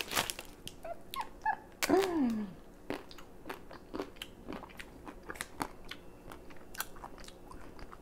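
Crunching bites and chewing of a chocolate-coated ice cream bar, the shell crackling, with crinkles from its plastic wrapper. A short, falling hum of the voice comes about two seconds in.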